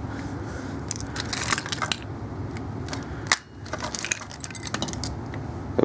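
Small plastic toys clattering and rattling as they are handled and rummaged out of a box, with scattered clicks and one sharper knock a little past the middle, over a steady low background hum.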